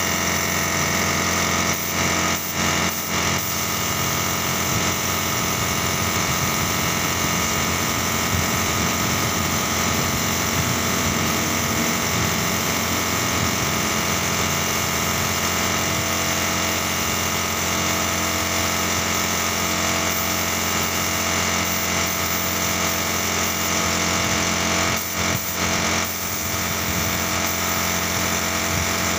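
Gravity-feed paint spray gun hissing steadily as it sprays paint, over the continuous hum of the air compressor that feeds it. The hiss breaks off briefly a couple of seconds in and again near the end, as the trigger is let go.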